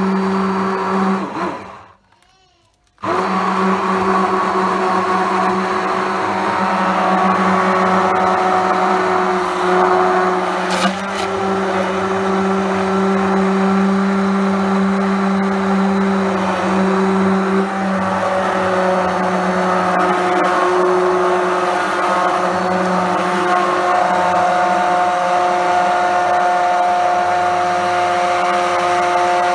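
Hand blender motor running steadily as it churns cream into butter, its pitch shifting slightly as the load changes. It stops for about a second near the start, then runs on.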